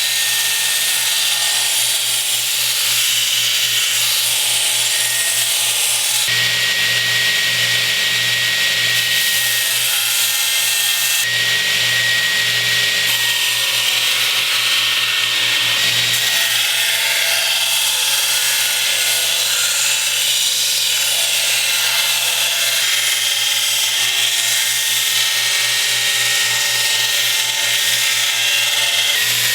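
Belt grinder grinding a steel knife blank cut from a lawn-mower blade: a steady, loud hiss of abrasive on steel over the motor's hum, brightening and easing as the blade is pressed and moved on the belt.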